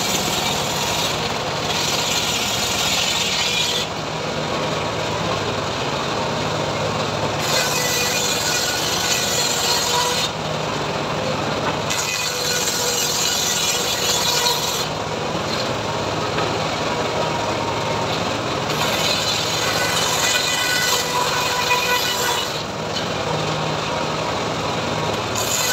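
Homemade engine-driven circular saw bench ripping hardwood planks: the machine runs steadily throughout, and a loud hiss of the blade cutting through the wood comes in about five passes of two to four seconds each, with the saw running unloaded between them.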